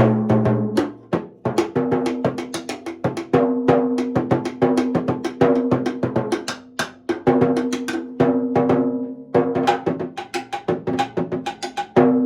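Timbales with Evans G2 clear heads struck with timbale sticks in quick rhythmic patterns and flurries. Each stroke rings with a clear pitch; the lower drum is heard near the start, the higher drum after that.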